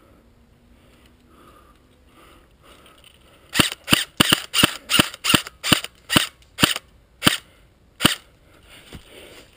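Electric airsoft rifle, a G&G CM16 Raider DST, firing a string of about fifteen sharp single shots that start about three and a half seconds in, come quickly at first and then space out.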